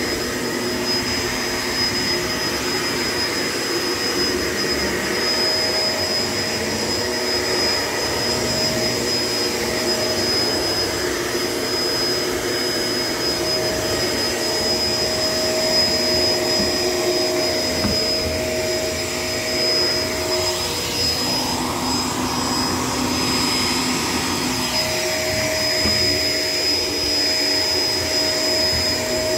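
Shark LA702 Lift-Away vacuum cleaner running steadily, a continuous rush of air with a high motor whine. About two-thirds of the way through, the motor's hum changes pitch for a few seconds, then settles back.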